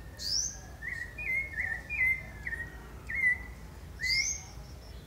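Rufous-bellied thrush (sabiá-laranjeira) singing a run of short whistled phrases. A sharper rising note comes near the start and again about four seconds in.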